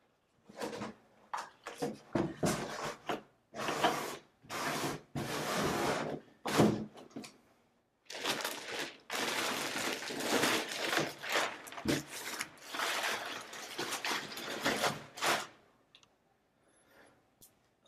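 Cardboard packaging scraping and rustling in repeated bursts as a desktop PC is worked out of its carton, with a few knocks, the sharpest about halfway through.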